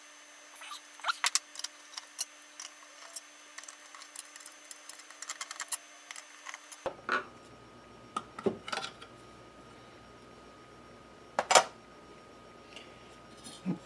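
Small metallic clicks, taps and rattles from a stepper motor driver's metal housing and circuit board being handled and taken apart by hand, with one louder knock about eleven seconds in.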